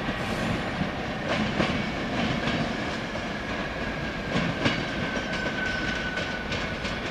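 Passenger coaches of a departing train rolling over curved track and points, their wheels clicking irregularly over rail joints and switches. A thin wheel squeal rises over the rumble from about the middle until near the end.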